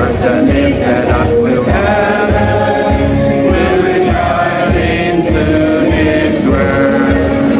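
Choir singing with musical accompaniment, notes held and changing about once a second over a steady low pulse.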